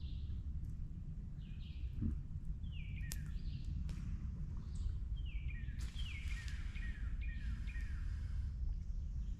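Birds calling outdoors: repeated short calls that fall in pitch, coming in a couple of runs, over a steady low rumble of outdoor background noise.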